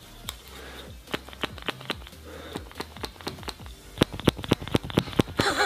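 Small plastic foundation pump bottle being worked hard by hand to get its pump to open or dispense: a series of sharp plastic clicks, sparse at first, then a quick run of about five a second from about four seconds in.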